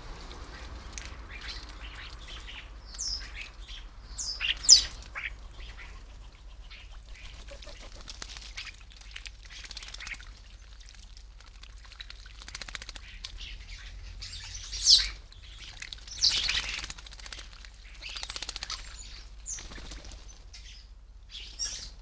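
European starlings calling at a bird bath, a scattered mix of falling whistles, squeaks and chatter that is loudest about five seconds in and again around fifteen seconds in.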